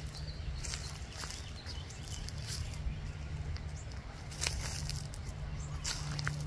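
Light rustling steps on grass and dry leaves, with a few soft crackles scattered through, over a steady low hum.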